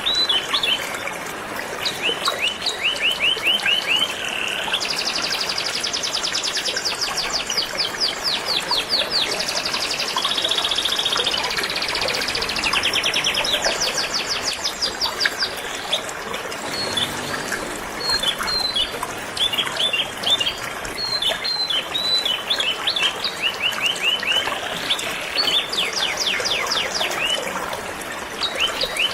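Canaries singing: long rapid trills and bursts of chirps, over the steady rush of flowing river water.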